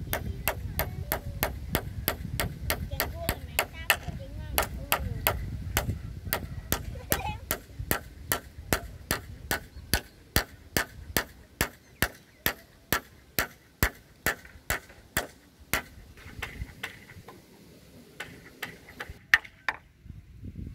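Hammer driving nails into a wooden pole of a building frame: a long run of sharp, even strikes, about two a second, that stops about three-quarters of the way through, with a few scattered strikes after.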